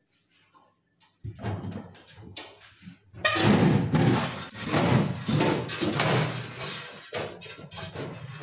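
Handling noises inside a refrigerator's freezer compartment: knocks and rubbing against the plastic liner and evaporator panel. They start after about a second of near silence and are loudest from about three seconds in.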